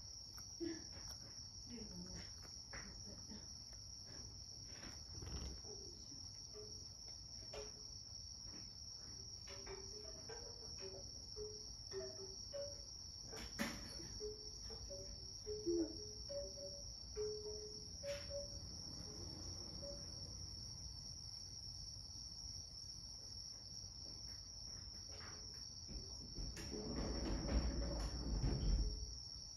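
A steady high-pitched drone runs underneath throughout. At the start a cat licks and chews food from a ceramic bowl, with small clicks. Near the end there is a louder, low rustling lasting about two seconds.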